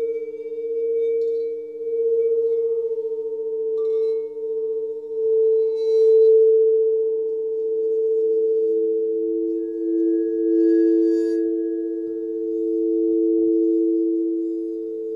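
Sound-healing frequency track: two steady pure drone tones, swelling and easing in loudness every second or two, the lower tone growing stronger past the middle. Brief faint high chime-like sparkles come three times.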